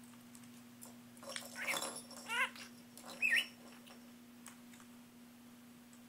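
Budgerigar giving a short burst of quick chirps and warbles, the last and loudest a sharp up-and-down chirp about three seconds in.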